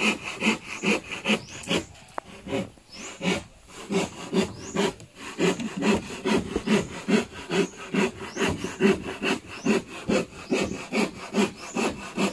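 Hand saw cutting plywood with quick, even back-and-forth strokes, about four to five a second, easing off for a moment about two seconds in.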